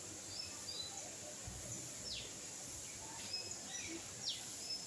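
Birds calling: short high notes and two quick downward-sliding whistles, over a steady background hiss.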